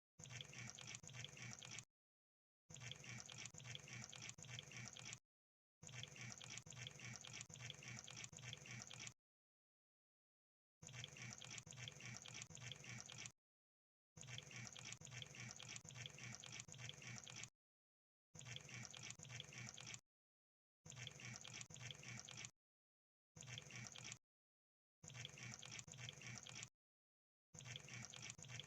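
Crab clicking: dense, rapid crackling clicks in about ten bursts of one to three seconds each, separated by short dead-silent gaps.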